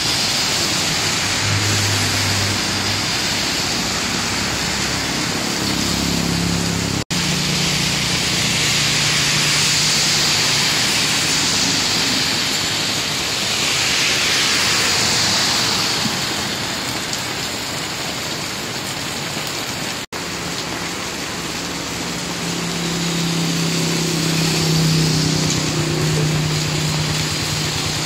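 Heavy rain pouring down with a steady hiss, while vehicles pass on the wet road with tyre spray and a low engine hum that swells and fades, one of them a motorcycle tricycle near the end.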